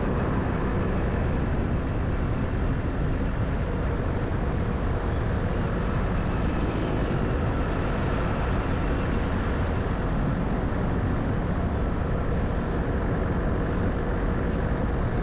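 A car driving along a road: steady engine and tyre noise.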